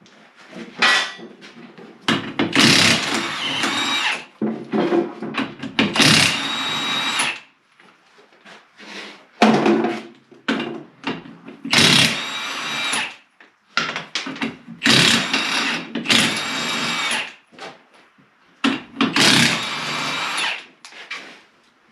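Impact wrench running in short bursts, about seven of one to two seconds each, spinning lug nuts off a skid steer wheel.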